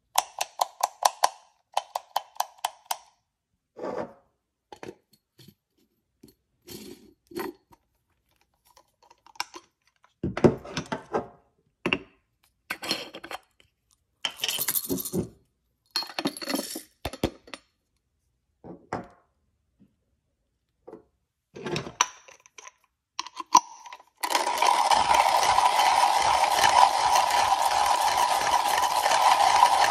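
Comandante C40 MK3 hand coffee grinder: the grind-adjustment wheel is clicked through a quick run of settings, coffee beans rattle as they are poured into the hopper, and for the last six seconds or so the beans are ground by hand, the crank turning the Nitro Blade steel burrs with a steady, loud crunching whir that is the loudest sound here.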